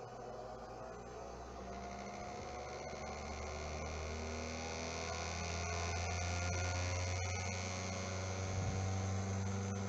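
Electric motor and shaft of a shaft-balancing and bearing test rig spinning up toward 6000 RPM. It is a steady hum that rises slowly in pitch and grows gradually louder as the speed climbs.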